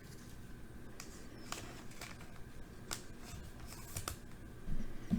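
Baseball trading cards being handled and slid across one another, giving a few faint clicks and rustles, with a soft thump near the end.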